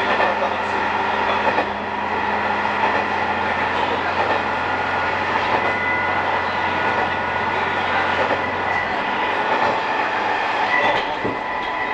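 Diesel railcar running along the track, heard from inside the car: a steady drone with a high whine and a few faint clicks of wheels over rail joints. The low engine hum drops away about nine seconds in.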